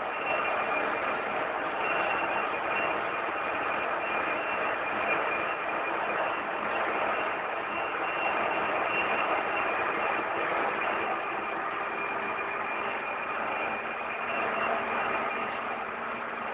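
Metal lathe running steadily: an even machine hum and hiss with a few steady whining tones over it.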